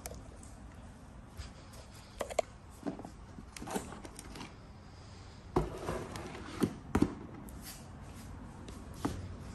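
Handling of a laptop and its cardboard box: scattered light knocks, taps and scrapes of plastic and cardboard, with a few sharper taps in the second half.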